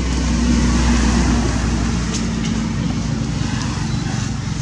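A motor vehicle's engine running steadily, a low hum that swells a little in the first second and then eases.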